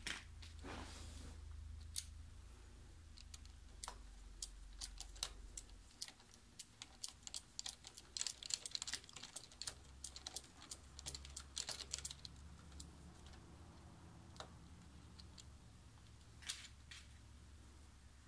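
Faint, quick light clicks and taps of hand tools and small parts being worked on a Sur Ron X's rear brake caliper while its pads are removed, coming thickest in the middle, with a couple of sharper clicks near the end.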